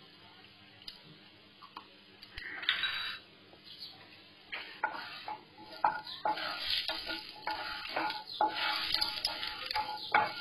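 Cumin seeds and asafoetida sizzling in hot oil in a nonstick kadai, with a wooden spatula scraping and knocking against the pan as it stirs. Quiet for the first couple of seconds, then a short burst of sizzling about two and a half seconds in. From about halfway, quick clicks and scrapes of stirring run over the sizzle.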